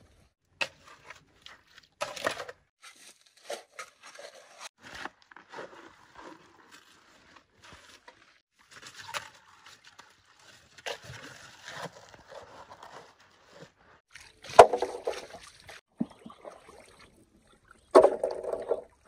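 Steel shovel scraping and scooping through wet gravel and stones in a flooded digging pit, with water sloshing. Irregular scrapes and clatters, with louder bursts about two-thirds of the way in and near the end.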